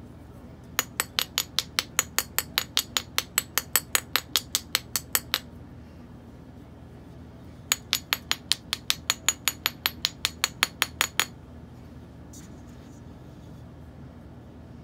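Metal spoon tapping rapidly on a stainless steel bath bomb mold, about five or six light ringing taps a second in two runs of several seconds with a pause between, to loosen the packed bath bomb from the mold.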